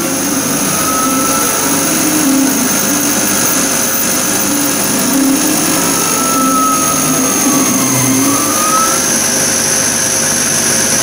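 CO2 laser engraver marking lines into a carbon fibre sheet: a steady machine rush, with the moving head's drive motors whining in tones that glide down and back up as it changes speed.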